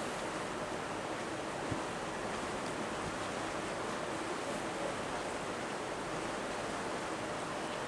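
Steady rushing of wind and water past a ferry under way on a fjord, an even noise with no pitch.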